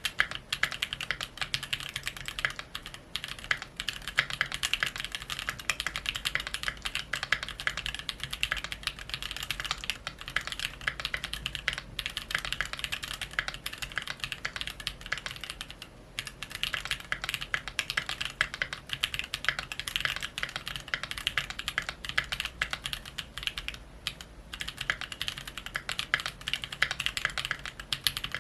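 Fast, continuous typing on a Keychron Q2 mechanical keyboard with stock Jwick T1 67g tactile switches on a steel plate, stopping briefly a few times. The keystrokes carry the spring crunch and ping that the uploader says is very noticeable in typical JWK switches.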